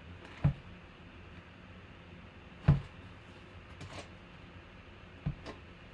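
Baseball bat being handled and turned over on a table: three sharp knocks, the loudest about halfway through, with a few softer taps between.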